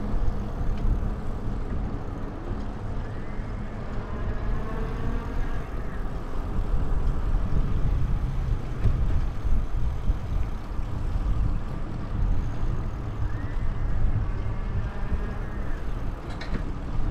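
Steady low rumble of wind buffeting the microphone, mixed with road noise, while riding a bicycle.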